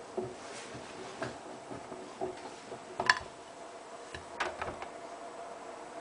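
Hotpoint Ultima WT960 front-loading washing machine with its drum turning the wet load, giving a steady low motor hum and irregular soft swishes and knocks. A sharp click comes about three seconds in and a few more knocks about a second later.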